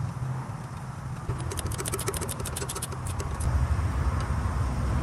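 Ratchet clicking rapidly for about two seconds, a little over a second in, as a starter mounting bolt is run in, over a steady low hum.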